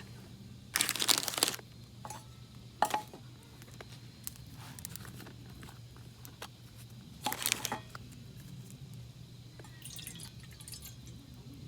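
Wood campfire crackling: scattered small snaps and three louder crackling bursts, the first about a second in, one near three seconds and one past seven seconds, over a steady low hum.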